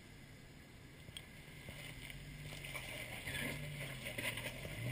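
Jeep engine pulling under load as the Jeep crawls forward over rocks, its low note rising slightly and growing steadily louder.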